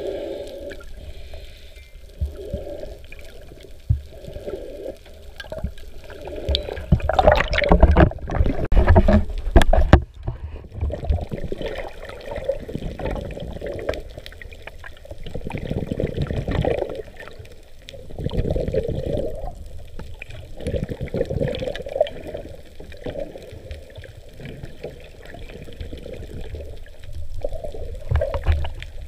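Water noise heard through an underwater camera's housing: a steady low rumble with muffled swishing swells as the camera moves through the water. About seven seconds in a louder rushing splash builds, then cuts off suddenly about three seconds later.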